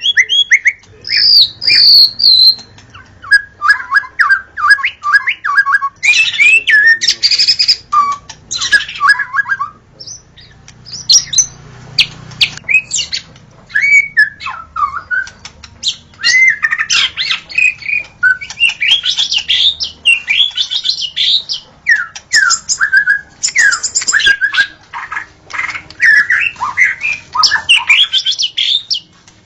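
White-rumped shama singing: a long, varied run of fast whistled phrases, sweeping notes and chattering trills, broken by a few short pauses, including a stretch of quickly repeated notes a few seconds in.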